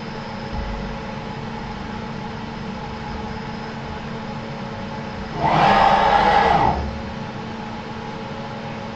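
CNC milling machine's Z axis rapidly retracting after a tool touch-off measurement. The axis drive whines, rising in pitch as it speeds up, holding for about a second, then falling as it slows, over a steady machine hum.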